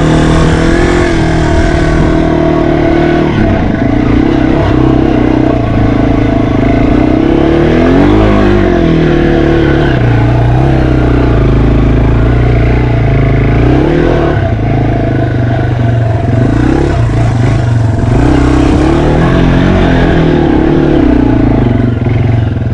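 Yamaha TW200's single-cylinder four-stroke engine running under load while ridden off-road, the revs rising and falling again and again with throttle changes.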